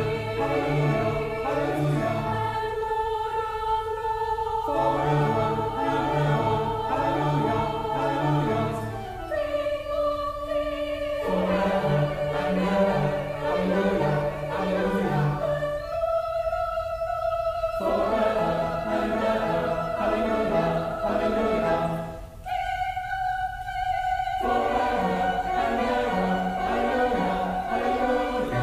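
Mixed virtual choir of separately recorded voices singing a hymn-like anthem in long held phrases, accompanied by organ with a stepping bass line played on the pedals beneath.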